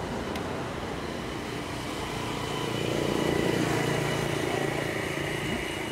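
A motor vehicle's engine passing, swelling to a peak about halfway through and fading near the end, over steady outdoor background noise.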